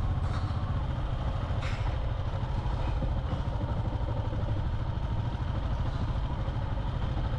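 Motorbike engine running steadily while riding, with road and wind noise, and one short click about a second and a half in.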